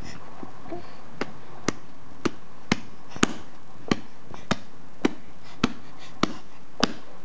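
A steady series of sharp taps, about one every 0.6 seconds and a dozen in all, faint at first and firmer from about two seconds in.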